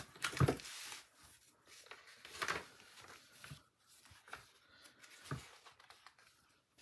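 Pages of old paper magazines being turned and handled, rustling and flapping in about five short bursts.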